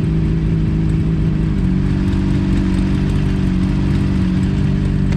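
Motorcycle engine running steadily under way. Its hum steps up a little in pitch about a second and a half in, then holds.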